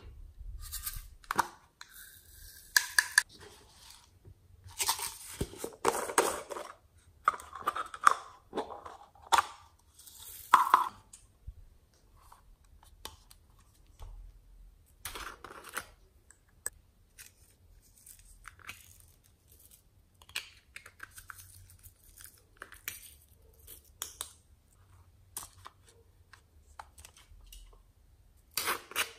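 Small plastic glitter tubes and pots being handled and opened, with lids clicking and glitter and sequins tipped out into a glass dish in short rustling pours. The sounds come in irregular spurts, busiest in the first ten seconds or so, quieter later, with a sharp click near the end.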